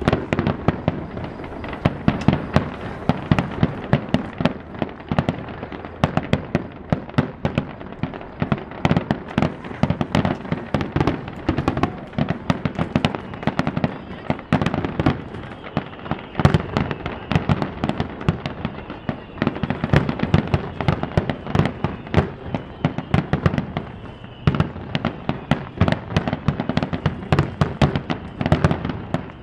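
Fireworks display: aerial shells bursting in rapid succession, a dense run of sharp bangs and cracks, several a second.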